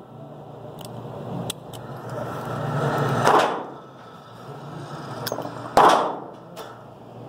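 Two gunshots on an indoor shooting range, one about three seconds in and a second, sharper one near six seconds, each a sudden loud crack that dies away quickly.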